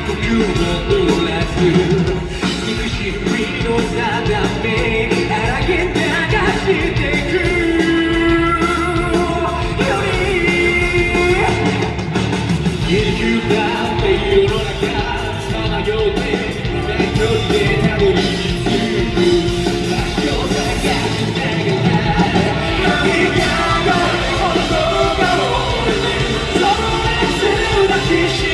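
Live rock band playing with a male lead vocalist singing, amplified through a concert PA.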